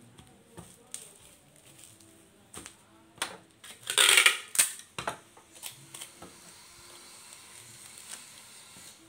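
Bubble wrap crinkling and rustling as it is handled, with small clicks. About four seconds in, packing tape is pulled off a handheld tape dispenser in a loud tearing burst, followed by a second shorter pull; this is the loudest sound.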